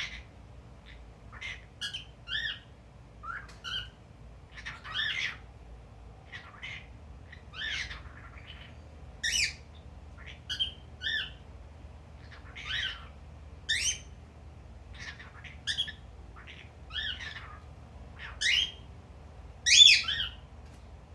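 Male cockatiel calling: a long run of short chirps and squawks, one to two a second and irregularly spaced, with the loudest call near the end.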